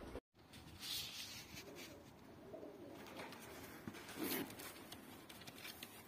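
Uzbek pigeons cooing faintly, a few low coos coming and going.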